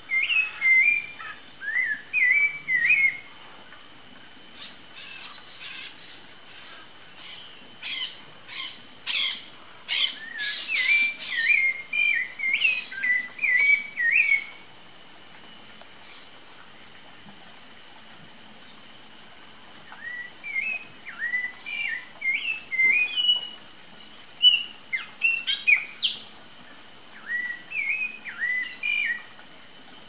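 Rufous-bellied thrush singing: three bouts of short, warbling phrases with pauses between them, over a steady high-pitched background buzz.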